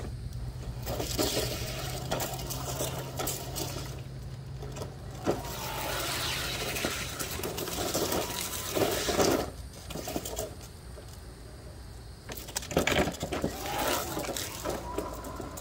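Electric wheelchair gearmotors of a remote-controlled push mower whining in several separate bursts as it drives and turns on asphalt, the pitch rising as it speeds up.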